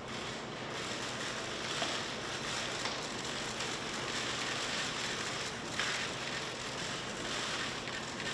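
Many camera shutters clicking in rapid, overlapping bursts, a dense steady clatter.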